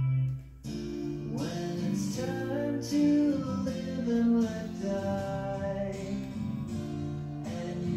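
Rock song playing from a vinyl record: a held low note ends about half a second in, and after a short gap a song with guitar and singing starts.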